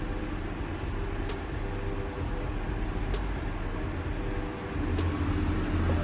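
Babyliss Pro hard-hat ionic bonnet dryer running: a steady fan noise with a deep low rumble. Faint high ticks come in pairs about every two seconds.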